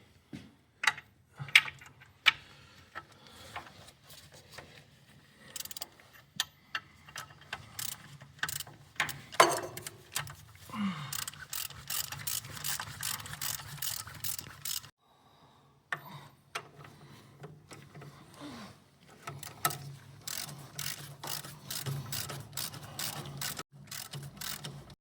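Hand ratchet with a 3/4-inch socket tightening the clutch bolts on a 1929 McCormick-Deering 22-36 tractor. A few single sharp clicks come first, then two long runs of rapid pawl clicking.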